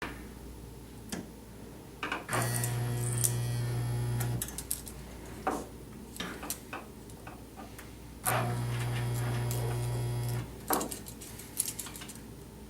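Resistance seam welder making two AC weld passes on thin copper sheet, each a low steady buzz of about two seconds. Clicks and clunks from the machine come before and after each pass.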